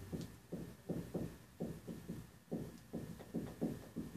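Whiteboard marker being written across a whiteboard: a series of short, faint taps and strokes, about two or three a second, as characters are written.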